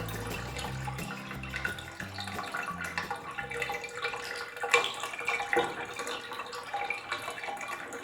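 Water running and splashing from a tap into a bathtub, with irregular splashes and one sharper splash a little after the middle. Background music with low bass notes plays under it for the first few seconds, then stops.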